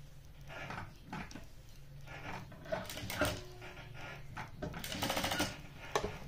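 Industrial sewing machine stitching in several short bursts as pleats are fed under the needle, with a rapid needle rhythm in the longest burst near the end and a steady motor hum in between.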